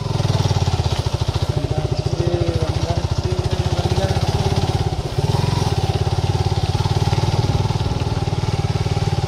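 Motorcycle engine running steadily at low speed with an even, rapid firing pulse as it is ridden along a dirt track; it eases off briefly about five seconds in, then picks up again.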